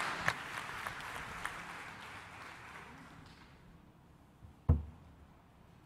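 A congregation applauding, the clapping fading away over the first three seconds or so. About a second before the end comes a single low thump, louder than the clapping.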